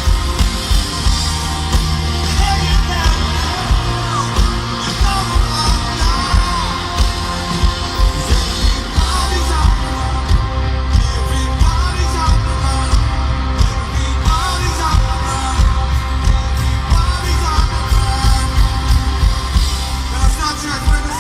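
Live rock band playing with a lead vocal over a steady beat and heavy bass, recorded from the audience.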